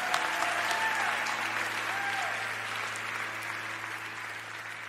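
Audience applauding, with a few voices calling out in the first couple of seconds; the applause slowly fades away.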